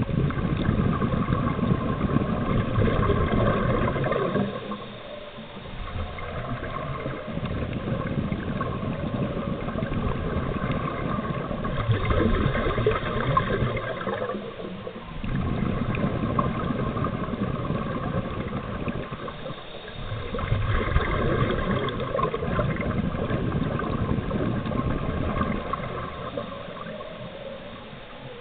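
Underwater rush and gurgle of breathing-gas exhaust bubbles from a surface-supplied diving helmet, swelling and easing in long surges a few seconds apart.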